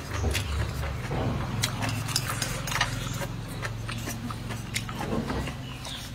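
Close-up eating sounds: wooden chopsticks clicking and scraping against a ceramic bowl and a mouth chewing rice, a string of small sharp clicks and smacks over a low steady hum.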